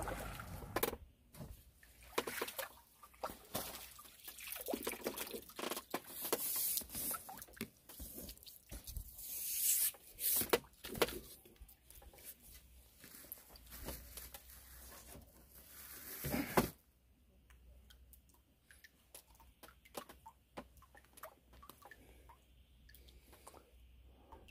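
Hooked crucian carp splashing and thrashing at the water's surface as it is played in and landed, in irregular bursts of splashing and dripping water that stop suddenly about two-thirds of the way through. After that there are only faint scattered clicks from handling.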